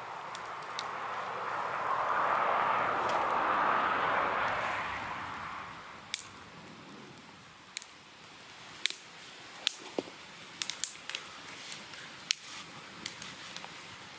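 Sharp snaps and clicks of sticks and birch bark being broken and handled, coming irregularly in the second half. Before them, a rushing sound swells and fades over the first few seconds.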